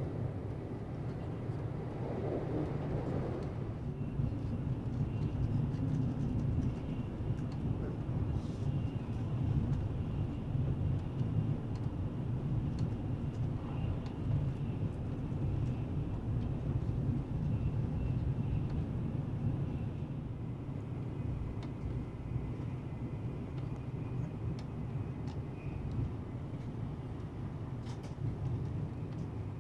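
Tokaido Shinkansen bullet train heard from inside the passenger car while running at about 280 km/h: a steady low rumble of running noise. A faint high whine sits over it for most of the first two-thirds.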